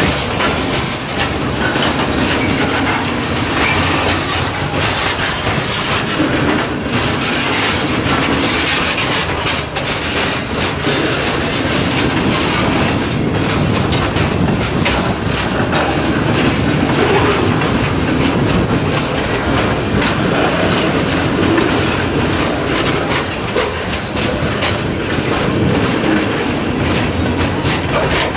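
Freight train of hopper cars rolling past at close range: a steady clatter of steel wheels on the rails, with rapid sharp clicks as the wheels cross the joints.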